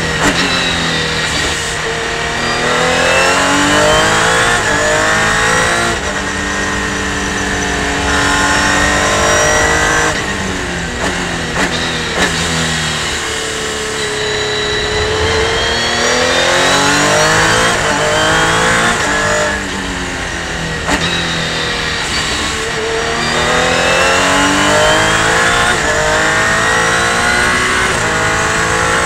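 Revolution 500 race car's engine heard from the cockpit, its pitch climbing again and again as it accelerates through the gears and dropping as it slows for corners, with a few short sharp pops along the way.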